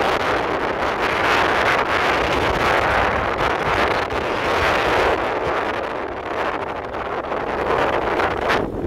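Heavy wind buffeting the microphone over the noise of a moving vehicle, with a sudden break near the end where the sound turns duller.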